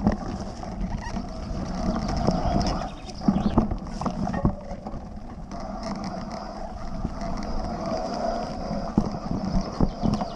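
Mountain bike riding a rough dirt and stone singletrack, heard from a camera mounted on the bike: a steady rush of tyre and wind noise with sharp knocks and clacks of the chain and frame over bumps and rocks, heaviest about three to four and a half seconds in and again near the end.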